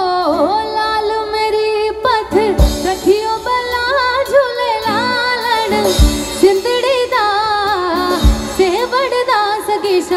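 Live amplified music: a woman singing a melody with sliding, wavering notes over an acoustic guitar, with a few deep thuds underneath.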